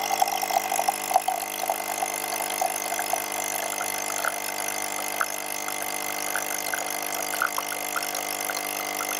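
Nespresso De'Longhi Lattissima Touch capsule machine's vibration pump humming steadily as it brews a lungo. The coffee stream trickles into a mug.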